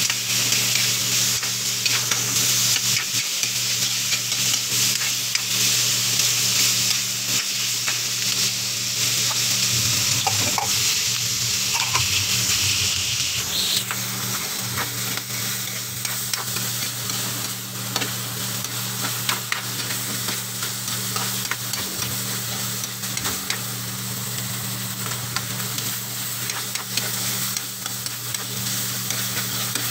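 Pork pieces sizzling as they fry in a wok, with a spatula scraping and knocking against the pan as they are stirred. The sizzle is strongest in the first half and eases a little about halfway through, over a steady low hum.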